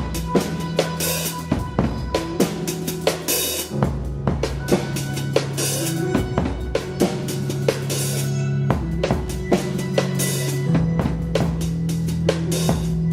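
Live band music: a drum kit playing a steady beat of kick and snare hits with cymbal crashes, over sustained low notes that shift pitch a few times.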